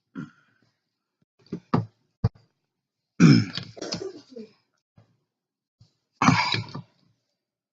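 A man's short throat sounds, like coughs, loudest about three seconds in and again near the end, with a sharp click just after two seconds.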